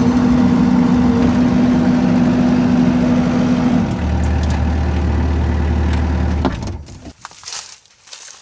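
Rippa R32 mini excavator's small diesel engine running steadily. Its sound deepens about four seconds in, and it stops abruptly about six and a half seconds in, leaving only faint rustling.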